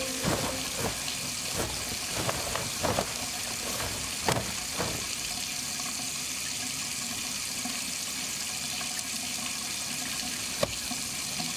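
Tap water running into a bathroom sink, a steady hiss, with hands splashing and several sharp knocks in the first five seconds and one more click near the end.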